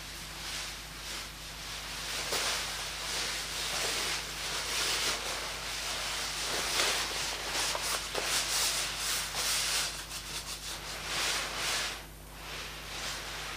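Fire burning in a stove's firebox under a nylon jacket: a fluctuating hiss with rapid crackling, densest in the middle, easing off briefly near the end before picking up again.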